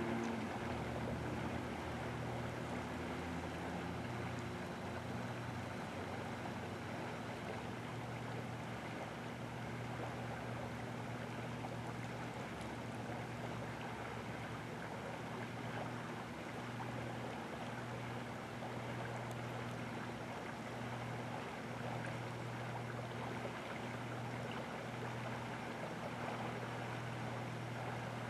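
River water flowing, a steady rushing with a steady low hum underneath.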